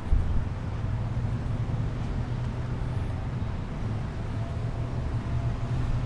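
Steady low rumble of road traffic and vehicle engines, with no distinct events.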